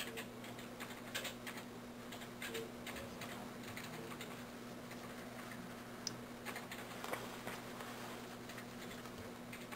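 Faint, scattered small clicks and ticks of fingers, thread and materials being handled at a fly-tying vise while a strip of clear scud back is tied onto the hook, over a steady low hum.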